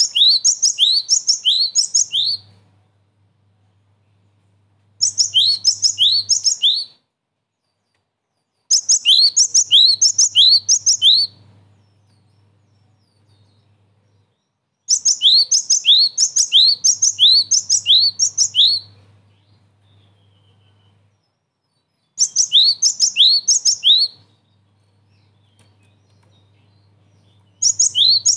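Cinereous tit singing: bursts of a quick, repeated two-note phrase, a high note followed by a lower one, given four to eight times per burst. Six bursts come with pauses of a few seconds between them.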